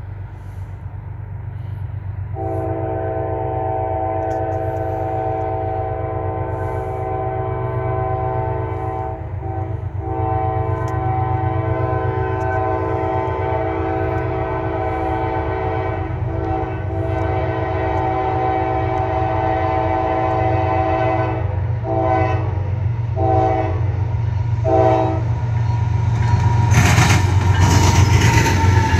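Third-generation Nathan K5LA multi-chime air horn on a CSX GE ES44AH diesel locomotive: two long blasts, then three quick short toots, over a diesel engine rumble that grows as the train approaches. Near the end the locomotive passes close with a loud rush of engine and wheels on rail.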